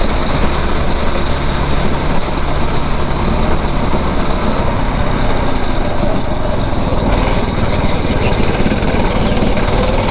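9 hp rental kart engine running steadily while the kart is driven around the track, its pitch rising near the end as it picks up revs.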